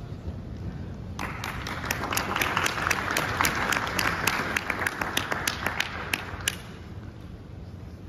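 Audience applauding: a dense patter of many hands clapping that starts about a second in, swells, and dies away after about five seconds.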